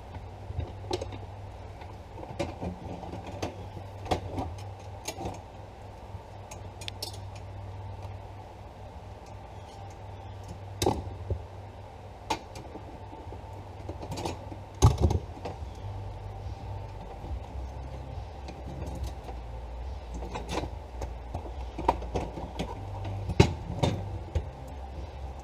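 Hand tools and loose metal parts clicking, clinking and knocking at irregular intervals while a car interior is taken apart, with a louder knock a little past halfway and another near the end, over a steady low hum.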